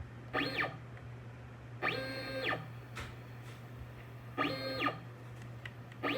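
NEMA 23 stepper motor jogging a 3D printer axis in short moves: three whines and the start of a fourth, each rising in pitch as the motor speeds up, holding, then falling as it slows to a stop. A steady low hum runs underneath.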